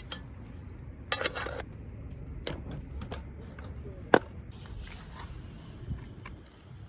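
A few scattered knocks and clatters of objects being handled, the sharpest and loudest about four seconds in, over a low steady rumble.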